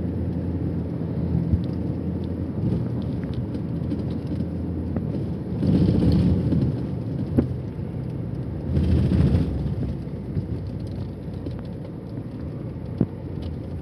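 Sea waves washing onto a beach: a steady low rush, swelling louder twice, about six and nine seconds in.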